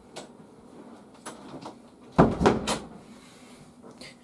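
Faint rustling and small knocks, then a sharp clatter about two seconds in, lasting about half a second, as things are picked up and moved.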